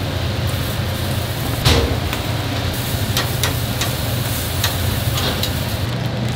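Steady whir and low hum of a kitchen extractor fan, with a sharp knock about two seconds in and a scatter of light clicks and taps from utensils at work.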